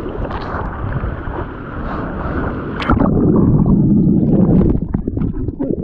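Water splashing and rushing past a surfboard-mounted action camera as the surfer paddles. About three seconds in, the camera plunges underwater and the sound turns into a loud, muffled churning of water for about two seconds, followed by bubbling and splashes as it comes back up.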